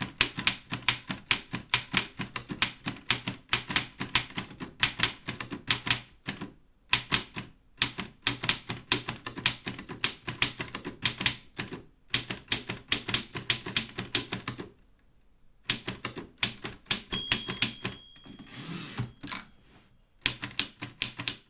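Erika 5 manual typewriter being typed on in quick runs of key strikes with short pauses. Near the end a line is finished: the margin bell rings, the carriage is returned, and typing resumes.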